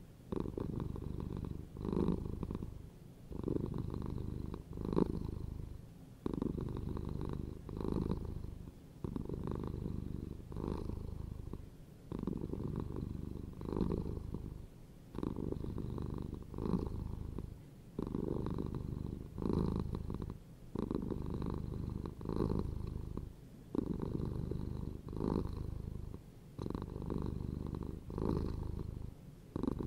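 Domestic cat purring steadily, the purr swelling and dipping with each breath in and out, about every two to three seconds.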